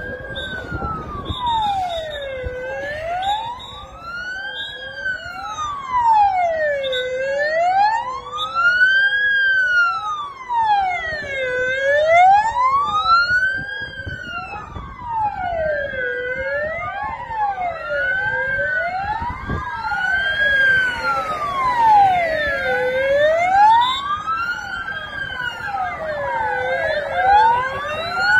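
Patrol car sirens wailing, the pitch rising and falling slowly, a full cycle every four to five seconds, with a second siren sweeping out of step with the first. Short high beeps repeat over it near the start and again late on.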